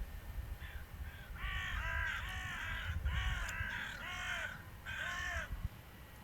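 A crow cawing: a run of short, arched calls repeated several times a second, starting about half a second in and stopping shortly before the end.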